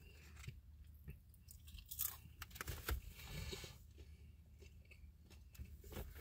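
Close chewing of crisp fried pickle fries: faint, irregular crunches, the strongest about two and three seconds in.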